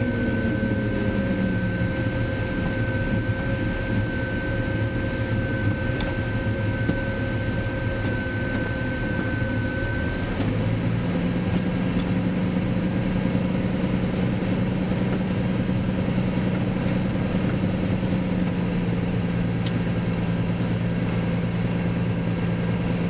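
Single-engine light aircraft's piston engine and propeller heard from inside the cockpit, throttled back and running at low power while the plane rolls on the ground. A tone falls in pitch in the first second or so as the engine slows, a high whine stops about ten seconds in, and a steady lower hum carries on after that.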